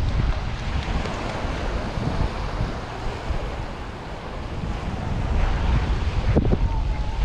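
Sea surf washing on the shore, with wind buffeting the microphone as a steady low rumble. The wash eases a little midway, then swells again.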